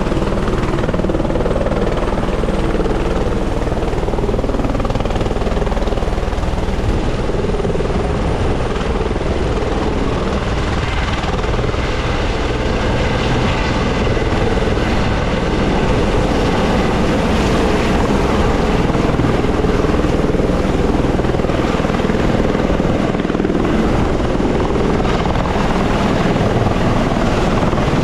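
Light turbine helicopter running on the pad with its rotors turning, a steady whine and rotor noise that grows a little louder about halfway through as it lifts off and climbs away.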